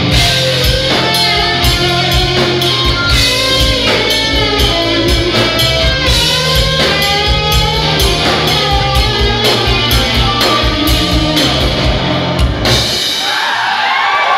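Live rock band playing: lead electric guitar lines with bends over bass and drums. The band stops abruptly near the end and the crowd starts cheering.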